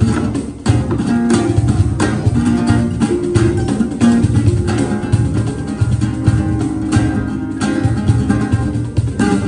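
Live instrumental trio of acoustic guitar, kora and cajón: plucked guitar and kora notes over a steady low beat on the cajón.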